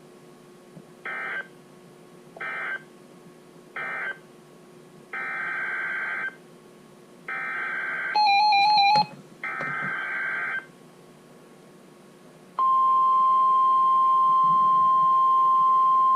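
Weather radio EAS/SAME digital data bursts: three short warbling blocks, the end-of-message code for the warning just read, followed by three longer blocks of the new alert's header, with a short burst of other steady tones breaking in about eight seconds in. About 12.5 seconds in, the steady, loud 1050 Hz NOAA Weather Radio warning alarm tone starts and holds, signalling a new warning about to be read.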